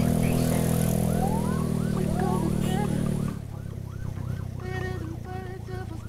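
Emergency vehicle siren yelping, its pitch sweeping rapidly up and down about three times a second. Beneath it the motorcycle's engine hum is loud, then drops off sharply a little over three seconds in.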